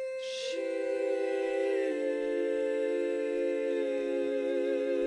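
Music: a slow chord of long held notes that builds up about half a second in and changes twice, with a short hiss near the start.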